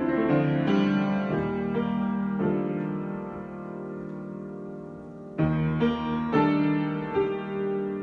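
Solo piano improvising slowly: chords struck and left to ring, one fading away for a few seconds before a new, louder chord is struck about five seconds in and followed by more notes.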